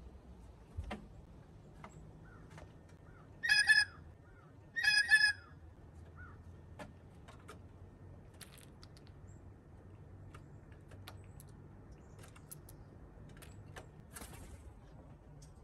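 Blue jay giving two harsh, loud calls about a second and a half apart, each about half a second long. They are followed by scattered light clicks while it feeds at a dish of sunflower seeds.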